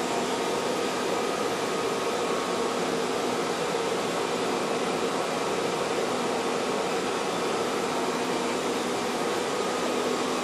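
Steady whir of cooling fans in a cellular equipment room, with a faint hum at a few fixed pitches that does not change.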